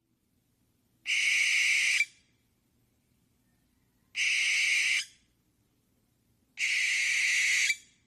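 Owl screeching: three harsh, hissing shrieks, each about a second long, a few seconds apart.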